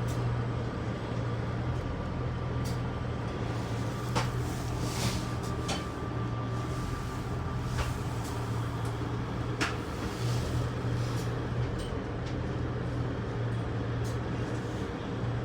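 A train running at speed: a steady low hum and rumble, with a handful of short sharp clicks and knocks spread through it.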